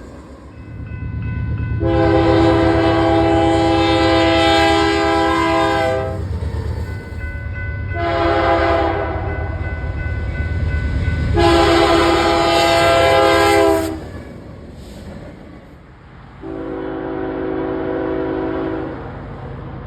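Locomotive air horn sounding at a grade crossing: a long blast, a short one and another long one, each a chord of several notes, then one more blast near the end. The train rumbles underneath throughout.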